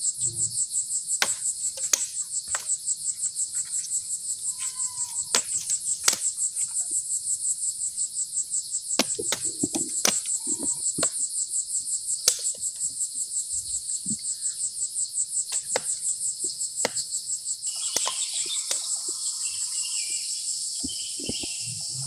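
Insects calling steadily in a high, rapidly pulsing trill of several beats a second, becoming a smoother buzz near the end. A few light knocks sound here and there.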